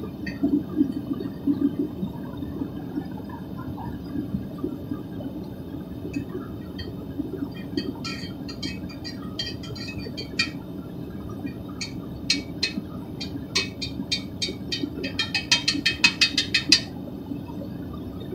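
Propane burner of a Devil Forge melting furnace running steadily with a low rushing sound while it melts scrap aluminium. Sharp clicks come through it from about six seconds in, with a quick run of a dozen or so near the end.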